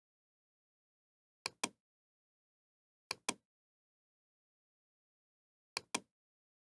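Computer mouse clicking: three double clicks, each a sharp pair of clicks, spaced a second or two apart, with dead silence between them.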